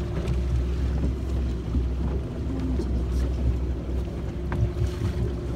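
Motorboat engine running steadily with a low, even hum, with some wind and water noise over it.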